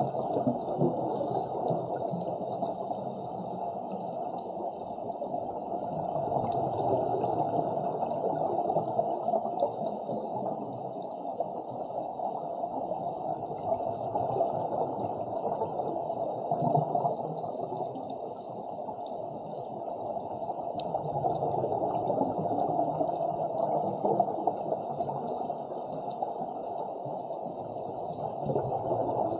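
Steady underwater water noise picked up by a submerged camera: a muffled, even rush that swells and eases slowly every several seconds.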